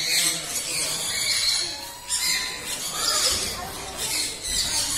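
Chorus of caged parrots and other aviary birds calling, high-pitched and continuous with louder bursts every second or so.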